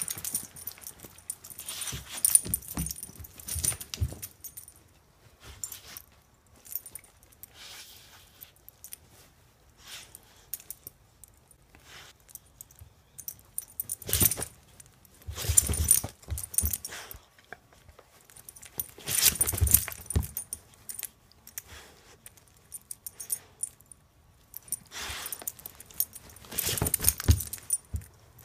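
A dog's collar tags jangling as it shakes and chews a plush toy, in four or so loud bursts with quieter gaps of small clinks between.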